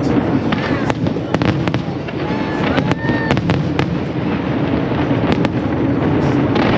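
Aerial fireworks shells bursting overhead: a string of sharp cracks and bangs in irregular quick succession, over a steady low rumble.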